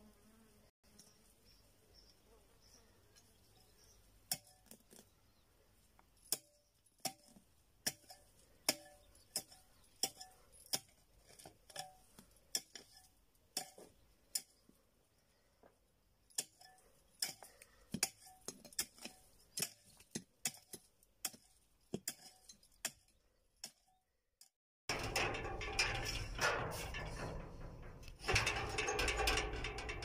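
A hand hoe striking stony soil in steady strokes, a sharp clink a little under once a second, with a short pause midway. Near the end it gives way to louder rustling and wind noise on the microphone.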